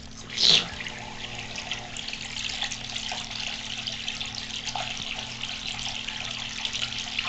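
Small electric submersible pond pump running under water, churning and bubbling the water with a steady rushing hiss, after a short splash about half a second in. The pump is working again, its once locked-up motor freed with lubrication.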